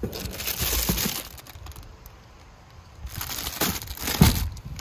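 Crinkling of clear plastic packaging and rustling of items as they are handled in a box, in two spells, the second starting about three seconds in, with a few soft knocks.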